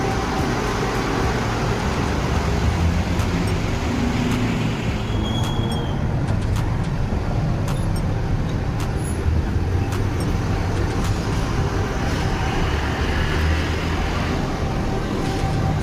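Monorail train running, a steady rumbling vehicle noise with scattered clicks and a brief high tone about five and a half seconds in.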